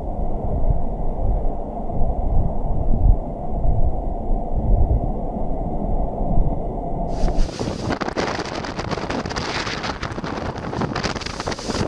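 Storm wind and surging water on a ship's pool deck, heard as a dull, muffled rumble. About seven seconds in it gives way abruptly to the hiss and crash of heavy breaking surf, with wind.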